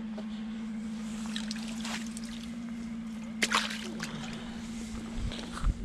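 Sea water sloshing and lapping against shoreline rocks, with one short sharp splash about halfway through. A steady low hum runs underneath.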